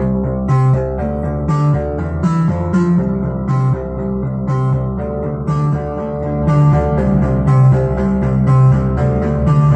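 Analog synthesizer music from Behringer MS-1 and Pro-1 monosynths, played through a Behringer Virtualizer Pro DSP2024P effects unit. A repeating line of short, plucky notes with sharp attacks runs over a bass pattern in a steady rhythm.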